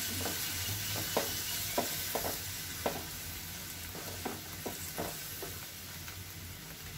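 Chicken curry gravy sizzling in a frying pan while a spatula stirs it, with about ten sharp taps and scrapes of the spatula against the pan that thin out over the last second or so.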